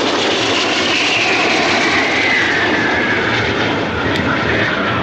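Aero L-39 Albatros jet trainers flying past in formation: steady turbofan jet noise with a whine that slides steadily down in pitch as they go by.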